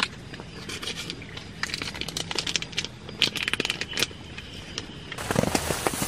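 Rapid, irregular crackling and clicking over a steady hiss. About five seconds in, a sudden, louder hiss of heavy rain sets in, with drops thudding on a surface.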